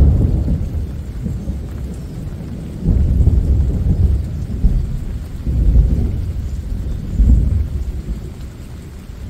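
Thunder rumbling in rolling peals, a loud one dying away, then new surges about 3, 5.5 and 7 seconds in, fading near the end. Rain falls steadily underneath.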